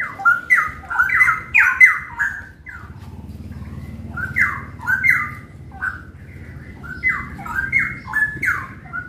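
Caged straw-headed bulbuls (cucak rawa) in full song ('gacor'): a rapid run of loud, short, falling notes, more than one bird calling at once, with a brief lull about three seconds in.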